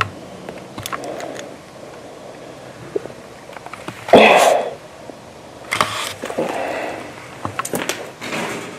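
Breathing through a respirator mask: several loud, hissing breaths, the loudest about four seconds in and more near the end, with a few faint clicks and knocks between them.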